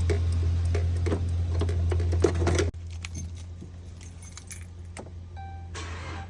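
Keys jangling and small clicks of handling, over a steady low hum that cuts off abruptly about two and a half seconds in. Near the end a few faint steady tones come in.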